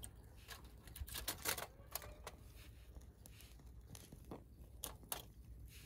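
Irregular sharp clicks and light knocks, a dozen or so, bunched most closely about a second and a half in and scattered after that.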